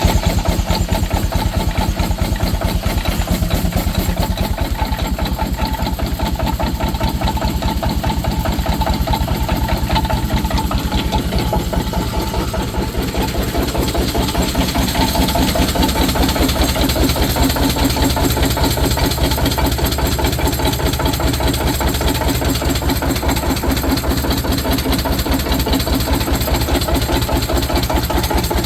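Steam engine running a sawmill, a steady, rapid run of even beats. It grows somewhat louder and brighter about halfway through.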